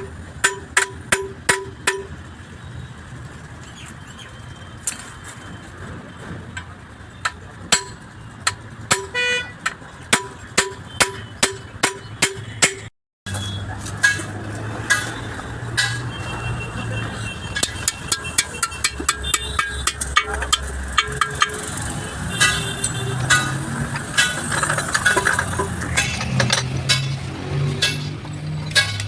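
Metal-on-metal hammer blows, struck in quick runs of several and each ringing briefly, as parts of a truck gearbox are knocked into place. Workshop and road noise continue underneath.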